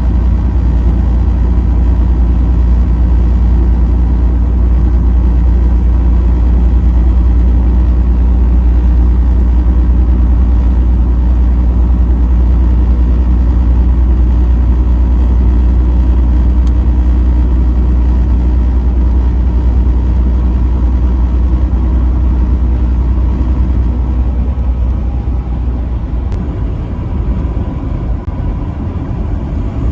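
Vehicle engine and road noise at highway speed: a steady, heavy low rumble with tyre hiss that eases off a little near the end.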